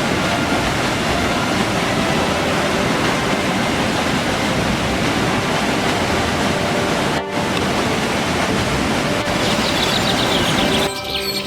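A steady rushing noise over faint background music. Near the end come a few high chirps, and then the music takes over.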